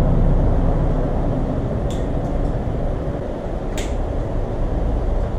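Steady low rumble with two short, sharp clicks, about two and about four seconds in, as wiring and cable ties are handled on a motorcycle's rear light bar.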